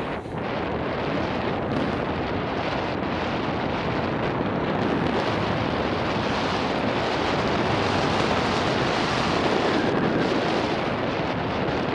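Wind rushing over an action camera's microphone on a mountain bike at race speed: a steady, dense roar that grows a little louder in the second half.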